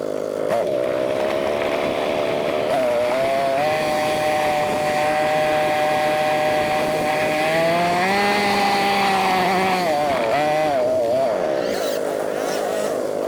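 ATV engine running under way, its note climbing a few seconds in, holding steady, rising again, then wavering and falling back near the end. The footage is sped up, so the engine note sounds high and chainsaw-like.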